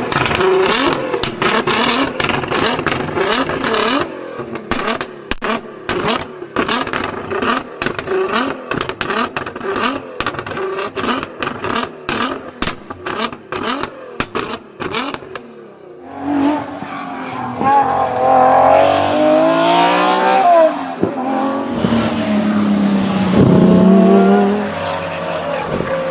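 Performance car exhaust popping and crackling rapidly over the engine. About sixteen seconds in this gives way to the engine revving up and down, with a few more bangs.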